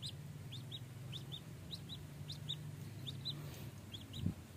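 A wet, worn-out duckling peeping over and over: short high peeps, often in pairs, about three a second. A low thump comes near the end.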